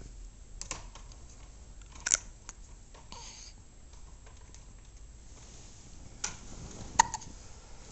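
Baby hiccupping: a few short, sharp hiccups, the loudest about two seconds in and about seven seconds in.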